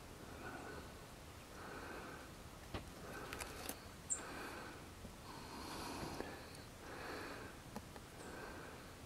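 Soft breathing close to the microphone, a puff every second or so, with a few faint clicks.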